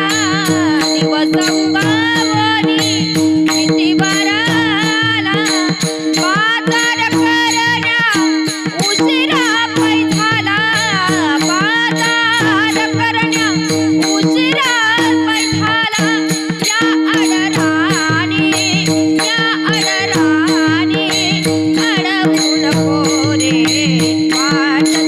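Marathi Warkari kirtan music: a melody that slides and wavers in pitch over a steady drone, with pakhawaj drum strokes and jingling hand cymbals keeping the rhythm.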